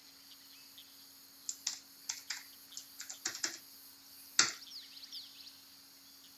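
Computer keyboard keys typed in a short run of separate clicks, then one louder keystroke about a second later: the Enter key running the command.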